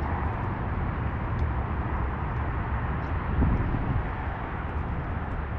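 Wind buffeting the microphone outdoors: a steady, gusting low rumble with a hiss over it.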